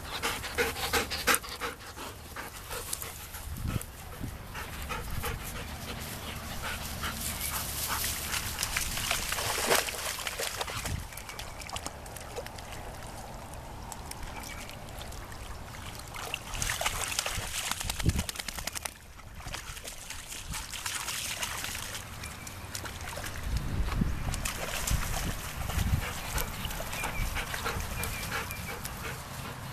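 Black Labrador puppies panting as they swim, with water splashing and trickling around them.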